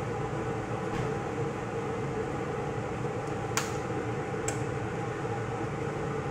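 Steady machine hum in a kitchen, holding one level throughout. Two sharp light clicks a second apart midway as two eggs are handled over a frying pan.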